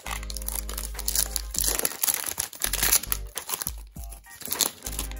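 Foil wrapper of a hockey trading-card pack crinkling as it is torn open and pulled apart by hand, over background music with a steady beat.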